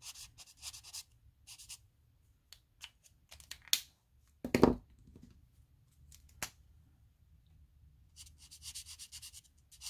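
Felt-tip alcohol ink marker tip scratching and dabbing on a dip-powder fingernail. Sharp clicks and one loud knock about halfway through as markers are put down and picked up. Scratching starts again near the end.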